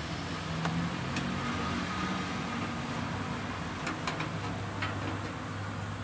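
Steady background noise with a low hum, broken by a few faint short clicks.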